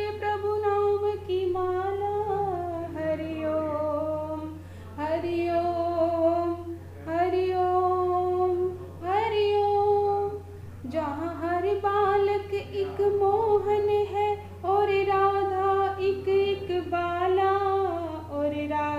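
A high solo voice singing a slow melody in long held notes, phrase after phrase, over a steady low hum.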